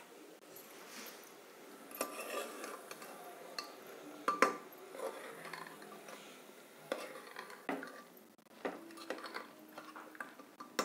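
Metal ladle stirring boiled chickpeas into a thick masala in a pressure cooker, with irregular clinks and scrapes of metal on the pot's rim and sides. The sharpest knock comes about four seconds in.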